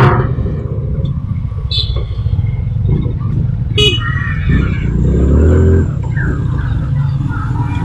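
Motorcycle engine running at riding speed, with wind rumble on the helmet-mounted microphone and street traffic around. A vehicle horn beeps briefly about four seconds in, and the engine swells louder for about a second shortly after.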